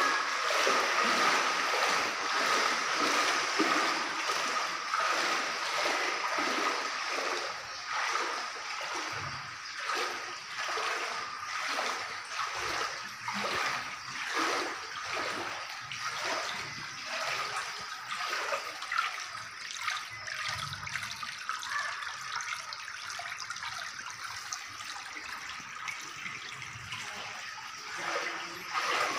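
Knee-deep floodwater sloshing and splashing around the legs of someone wading through a flooded house, a rush of water with each step. The splashing is softer in the second half.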